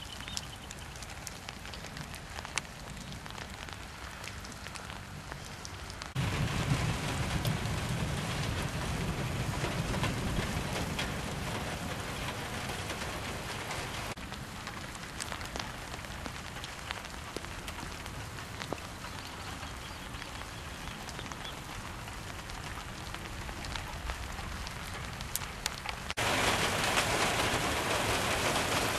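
Rain falling steadily: an even hiss with scattered drop ticks. The level and tone change abruptly a few times where recordings are cut together, one stretch carrying a low rumble beneath the rain.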